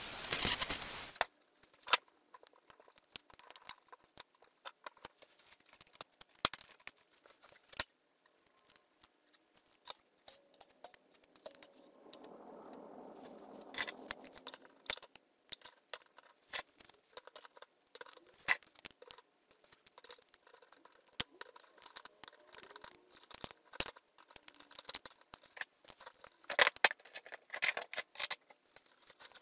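A handheld rotary tool runs briefly and cuts off about a second in. After that come scattered clicks and metal clinks as pliers and cutters are handled and hung on the rack's bar.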